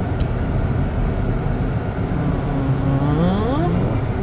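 A car driving: steady engine and road rumble, with the engine note rising in pitch about two and a half seconds in, then breaking off near the end.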